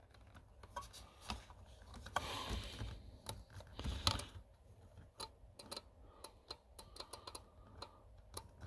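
Porsche 944 alarm control module clicking faintly and irregularly, many light ticks. It is the box behind the battery's parasitic draw, and the owner takes the clicking for the alarm arming when it should not be.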